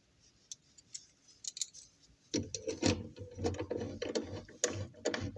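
Small 3D-printed plastic mechanism clicking and rattling: a few scattered clicks at first, then from about two seconds in a dense, continuous rattle of clicks over a steady hum.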